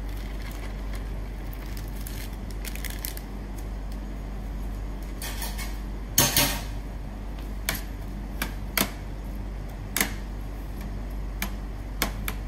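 A metal spoon knocking and scraping against a stainless steel tray while spreading chunky watermelon mixture, a series of sharp clinks from about six seconds in, the first the loudest. Before that, only faint rustling over a steady low hum as the mixture is poured from a plastic bag.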